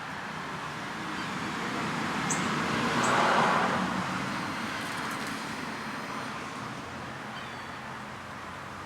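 A road vehicle passing by: tyre and engine noise that swells to a peak about three seconds in and slowly fades away.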